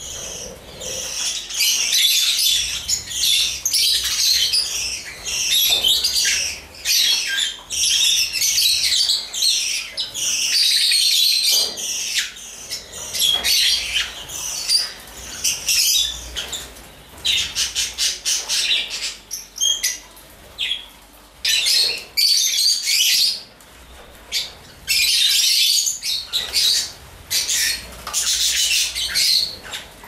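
A flock of lovebirds chattering with high-pitched squawks and chirps almost without pause, with wing flaps as they fly down to the food dishes.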